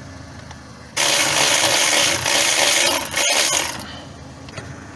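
A burst of compressed-air hissing from a pneumatic tool, lasting about three seconds with a brief break near the end.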